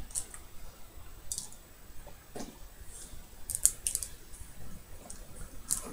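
Tiny plastic diamond-painting drills and their packaging handled by hand: scattered light clicks and rustles, with a quick cluster of clicks a little past halfway.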